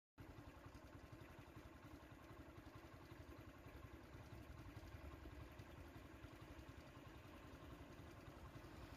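Faint, steady low rumble of an idling vehicle engine.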